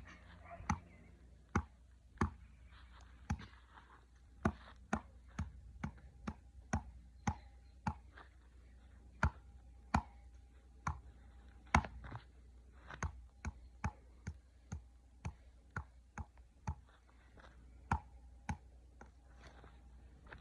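Hammer striking a tree: a long, uneven series of sharp knocks, about one or two a second.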